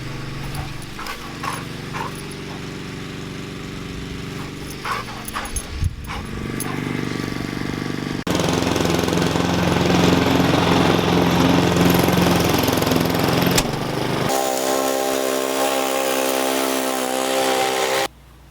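Petrol lawn mower engine running, heard in several sections that change suddenly in loudness and tone, with a louder, rougher stretch in the middle and a steadier, higher-pitched drone near the end before it cuts off.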